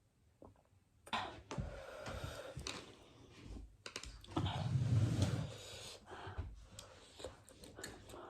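Close-miked eating of spicy Korean instant noodles: wet chewing and slurping with many small clicks, starting about a second in, with a louder stretch near the middle.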